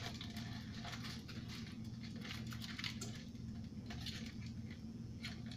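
Aluminium foil crinkling and rustling in irregular small crackles as it is pressed by hand over the centre tube of a metal bundt pan, over a steady low hum.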